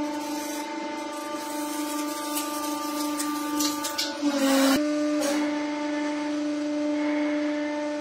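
Hydraulic press motor running with a steady hum while the ram crushes a plastic palm-tree figure. Scattered crackles of plastic cracking build to a dense crunch about four seconds in, with the hum dipping in pitch under the load, and end in one sharp crack; the hum then runs on steadily.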